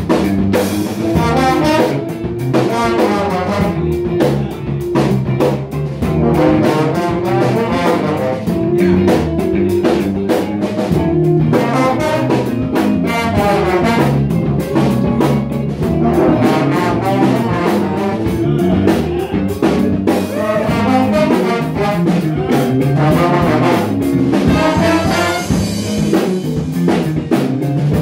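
Jazz big band playing live: a horn section of saxophones and brass over a steady drum-kit beat.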